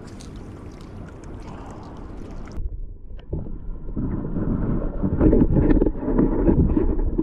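Wind buffeting the action-camera microphone, with a few light handling clicks. A little over two seconds in, the sound turns suddenly muffled as the camera goes underwater. From about four seconds, loud irregular underwater churning and sloshing is heard as a hooked smallmouth bass thrashes on the line.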